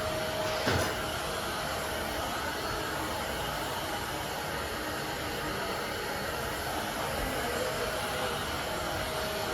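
Vacuum cleaner running steadily, an even rushing hum with a faint steady whine and a brief knock about a second in.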